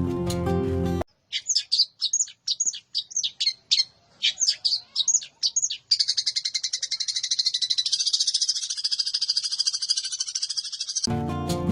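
A songbird singing: a string of sharp, high, downslurred whistled notes for about five seconds, then a long, very fast high trill for about five more. Guitar music stops about a second in and comes back near the end.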